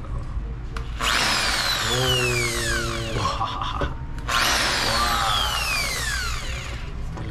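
Fujima corded impact drill running free with no load, triggered twice: about a second in and again about four seconds in. Each run starts suddenly with a high motor whine that slides down in pitch over about two seconds as it winds down.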